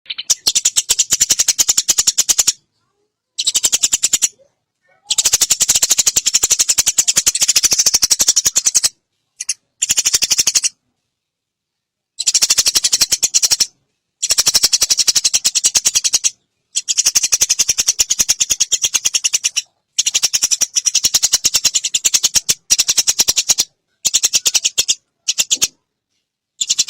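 Eurasian tree sparrow giving long, very rapid, rattling chatter calls, a dozen or so bursts lasting from under a second to about four seconds, each stopping suddenly into a short silence.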